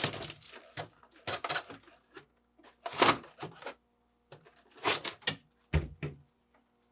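Plastic evaporator cover of a GE french door refrigerator being pulled free and handled: a few clusters of plastic clacks and rattles, with a dull thump near the end.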